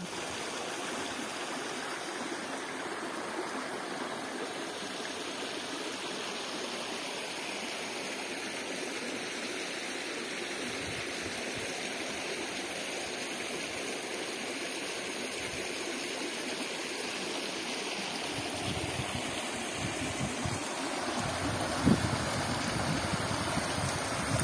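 Mountain stream running over rocks: a steady rushing and gurgling of water. It grows a little louder in the last few seconds, with one sharp knock near the end.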